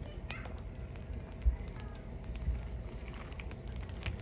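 Firewood burning in an open fire, crackling with scattered sharp pops over a low rumble. A dull low thump stands out about a second and a half in.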